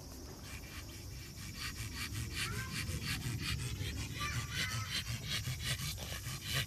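Pug panting: quick, even, rasping breaths.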